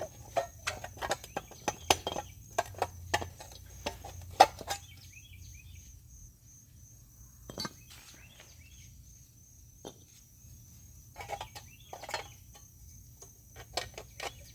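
Metal clinks and taps as a reused sheet-metal dust shield is fitted onto a new steering knuckle: a quick run of sharp clicks over the first five seconds, then scattered single taps.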